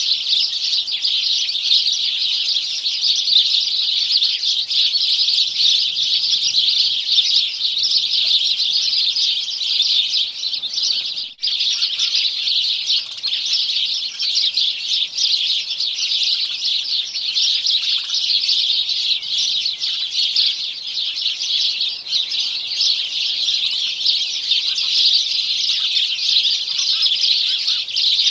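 Sparrows chirping continuously, many rapid calls overlapping, with a brief break about 11 seconds in.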